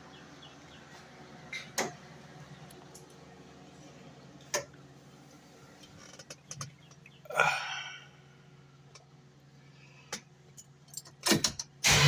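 A steady low hum with a few scattered clicks and knocks and a brief rustling sweep midway. Right at the end, the 1974 Plymouth Cuda's engine is cranked and starts, suddenly loud.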